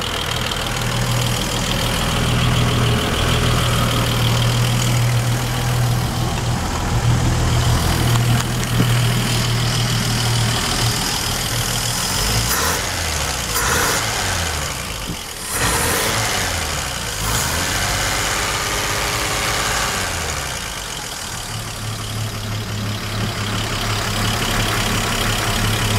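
Gray Marine 140 flathead six-cylinder marine engine of a 1954 Century Resorter idling steadily, then blipped up and down by hand at the throttle linkage for several seconds about halfway through, before settling back to a steady idle.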